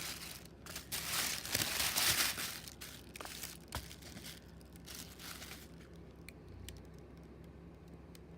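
Packaging crinkling and rustling in bursts as stationery items are handled and unpacked, with a few small clicks; the handling quietens after about five seconds.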